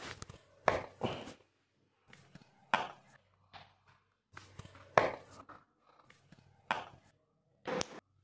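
A series of about eight sharp knocks or slaps, irregularly spaced, with a faint low hum between them.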